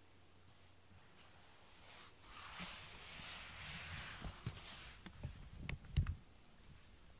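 Handling noise from the camera being lowered to the floor: a hissy rustle, then a run of light clicks and knocks with one louder thump about six seconds in.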